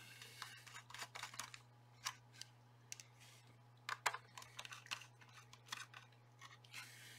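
Faint scattered clicks and small taps of hands working at a portable shortwave radio's opened plastic case, circuit board and screws, over a steady low hum.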